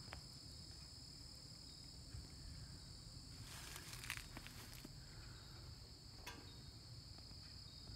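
Faint, steady, high-pitched chorus of insects, with a few soft clicks and a brief rustle about three and a half seconds in.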